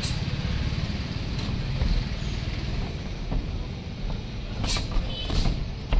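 A steady low rumble, like road traffic, with a few sharp smacks near the end, spaced less than a second apart: boxing gloves landing during sparring.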